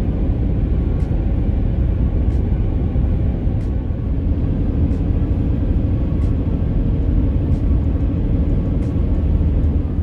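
Steady low road and engine rumble heard inside a car cruising at highway speed.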